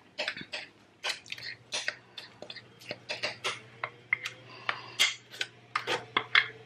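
Metal spoon scraping and clinking against a glass mixing bowl while scooping thick pumpkin bread batter into a parchment-lined loaf pan: an irregular run of light clicks and scrapes, with soft squelches of batter.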